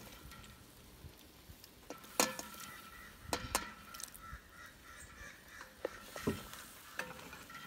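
Pineapple chunks being pushed off a plate into a pot of curry sauce and stirred in with a wooden spoon. A few sharp clicks and knocks sound as the plate and spoon touch the pot: a loud one about two seconds in and two more about a second later.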